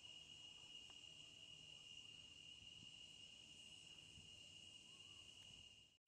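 Faint, steady, high-pitched insect chirring over a soft hiss of outdoor ambience, cutting off abruptly near the end.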